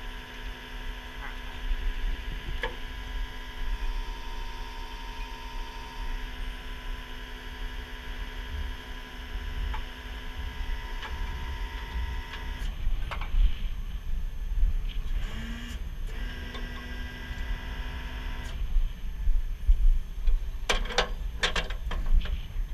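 Heavy wrecker's engine running with a steady mechanical whine over a low rumble as the hydraulic winch works. The whine drops out about 13 s in, returns briefly, and near the end there are sharp metal clanks and rattles from the winch cable and hook.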